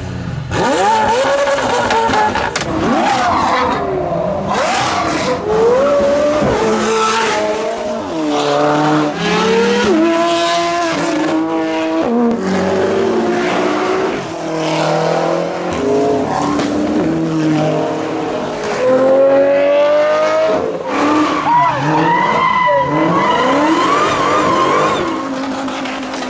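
A series of high-performance supercar engines revving and accelerating hard. Their pitch climbs, drops back at each gear change and climbs again, several runs in a row.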